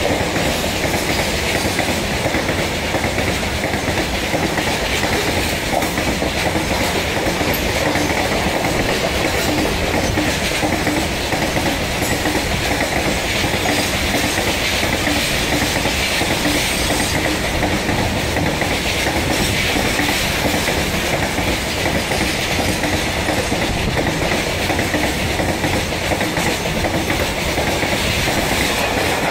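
Freight train of covered goods wagons rolling steadily past, wheels clattering over the rail joints in a continuous clickety-clack over a steady rumble.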